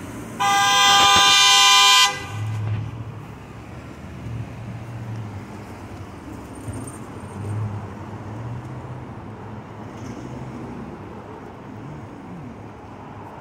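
A vehicle horn honks once, held for about a second and a half, about half a second in. After it comes the low rumble of car engines and tyres in passing street traffic.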